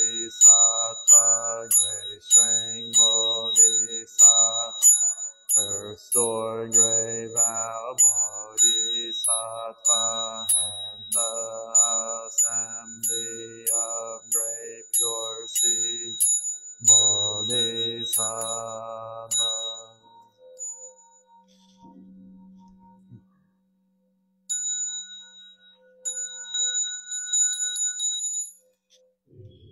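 Buddhist monks chanting in unison, syllable by syllable, over a high bright chiming beat about twice a second. The chant stops about twenty seconds in, and near the end a high ringing bell-like tone sounds for a few seconds.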